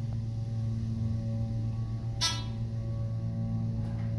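Dover hydraulic elevator running with a steady low hum as the car travels. About two seconds in, the car's chime rings once.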